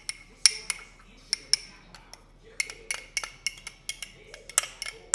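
A spoon clinking and scraping against a bowl while stirring a thick, creamy mixture: a run of sharp, irregular clinks, a few every second.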